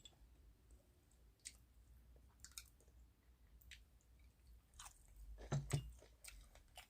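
A person chewing food, faint, with a few soft wet mouth clicks and a slightly louder bite near the end.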